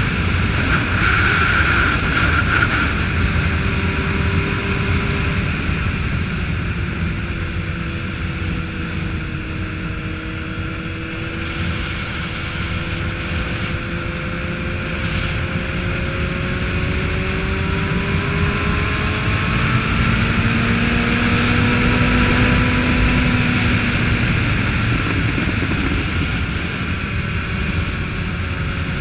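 Motorcycle engine running at road speed, mixed with wind rushing over the microphone; the engine's pitch drifts slowly up and down as the throttle and speed change.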